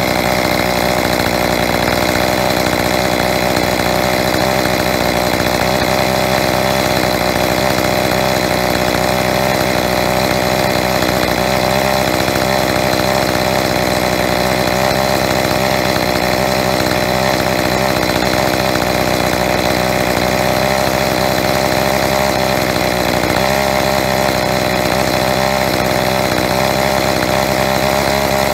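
Echo CS-2511TES top-handle chainsaw's small two-stroke engine running steadily at about 3,700 to 3,900 rpm, the revs creeping up slightly as the carburettor mixture screw is turned toward its leanest setting.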